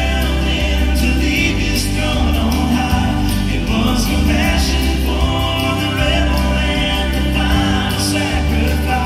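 Live gospel trio singing, amplified through stage speakers, with two acoustic guitars strumming and a bass line stepping through low notes under the voices.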